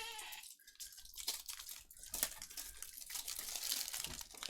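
Plastic packaging crinkling and trading cards being handled: a run of light, irregular rustles and clicks.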